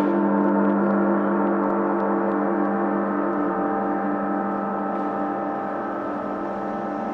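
Large gong ringing with a sustained drone of several steady tones that waver and pulse, slowly fading.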